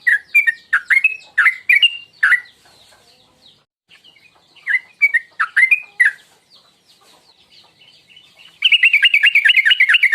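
Yellow-vented bulbul (trucuk) singing: short phrases of chirping notes near the start and again around five seconds in, then, from about nine seconds in, a fast run of repeated chirps at about eight a second.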